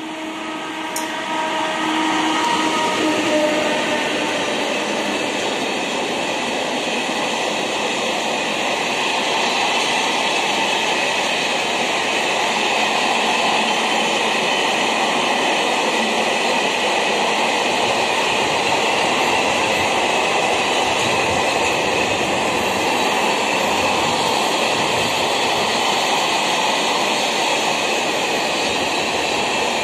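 Freight train of covered wagons rolling past close by behind an electric locomotive: a loud, steady rush of wheels on rail that builds over the first two seconds and then holds. A few steady tones sound in the first few seconds and fade out.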